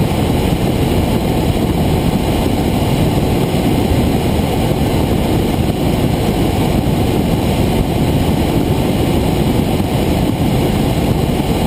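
Helicopter in flight heard from inside the cabin: the rotor and engine make a steady, even noise, mostly low, with no change in pitch or level.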